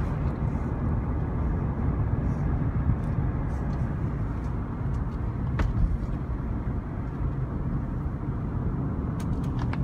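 Steady road noise of a car driving at highway speed, heard from inside the cabin: a low rumble of tyres and engine, with a faint click about halfway through and a few more near the end.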